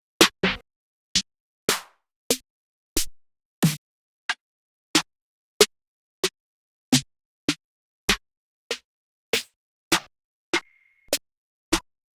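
Trap drum-kit one-shot samples played one after another, about twenty short percussive hits spaced roughly every half-second with silence between. One brief steady high tone sounds near the end.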